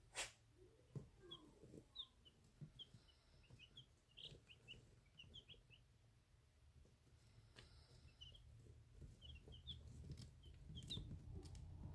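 Baby chicks peeping softly: scattered short, high chirps in two bunches, one in the first half and another near the end, with a sharp click just after the start.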